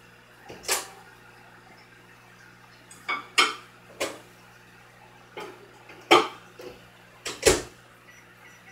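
Irregular sharp clinks of hard objects knocking, about nine in all, some in quick pairs, over a faint steady hum.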